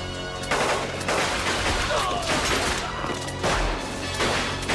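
A string of pistol shots in a shoot-out, irregularly spaced, each with an echoing tail, over a film music score.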